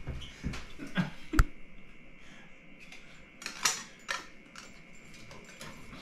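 A cockatoo's beak striking and biting at a tape dispenser: a few irregular clicks and clatters, the sharpest about one and a half seconds in.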